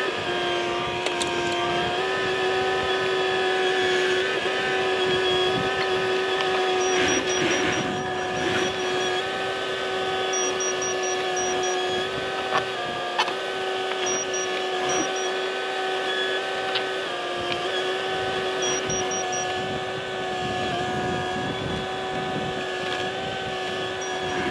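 A Cat 304E mini excavator's diesel engine runs steadily at working speed with a whine from its hydraulics as it digs and dumps dirt. There are a few faint knocks from the bucket.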